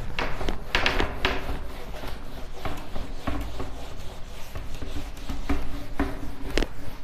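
Whiteboard duster rubbing across a whiteboard in a series of short, uneven wiping strokes, clearing marker writing off the board.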